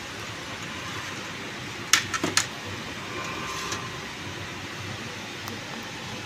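A few sharp clinks and clicks about two seconds in, and one fainter near the middle, as metal-cased switching power supply units are shifted on a glass cabinet shelf. Steady room noise sits under them.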